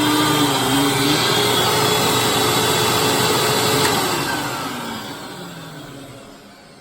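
Hoover WindTunnel upright vacuum cleaner running steadily, then switched off about four seconds in, its motor winding down with a falling pitch and fading away.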